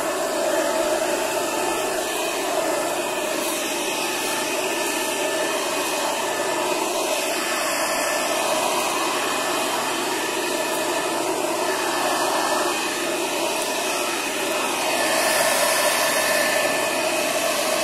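Battery-powered electric blower fitted to a knapsack weed sprayer, running steadily: a constant fan whine over the rush of air that carries the spray mist.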